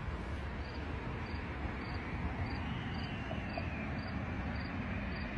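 Outdoor ambience on a phone microphone: a steady low rumble with a faint, high chirp repeating evenly about twice a second.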